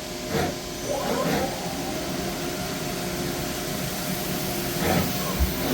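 2008 Doosan Lynx 220G CNC lathe running: a steady machine hum with several constant tones, with brief murmurs of voices over it.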